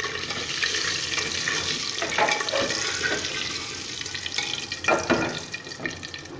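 Oil sizzling around boiled eggs frying in an aluminium pressure cooker, while a wire-mesh strainer scrapes and knocks against the pot as it scoops the eggs out, loudest about two seconds in and again around five seconds.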